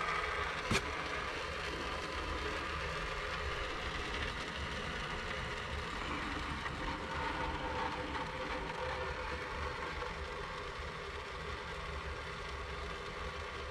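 Water running steadily out of the freshly cut end of a copper supply pipe as the line drains of the water left above it. There is one sharp click about a second in.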